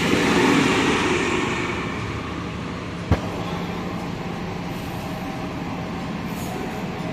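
City transit buses running through an enclosed bus concourse: one bus's engine noise fades as it pulls away, then a steady lower rumble as the next bus rolls in. A single sharp click about three seconds in.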